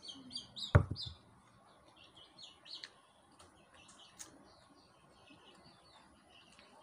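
Small birds chirping repeatedly in the background. A single loud, low thump comes just under a second in.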